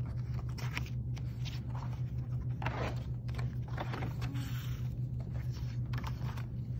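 Sheets of watercolor paper being handled, rustling and sliding across a tabletop in short scattered bursts, over a steady low hum.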